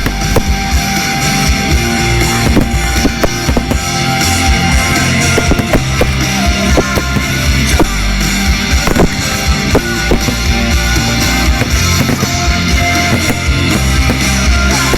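Loud rock music with electric guitar and drums, with frequent sharp bangs and crackles of exploding fireworks through it.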